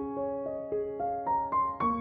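Slow, soft solo piano music: single notes rising step by step over held lower notes.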